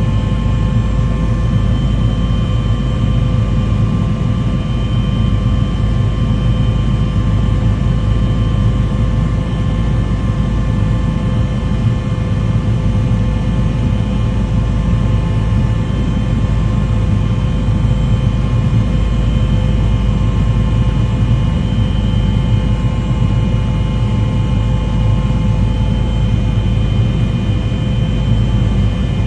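Steady vehicle engine noise: a constant low rumble with several faint steady whining tones over it, unchanging throughout.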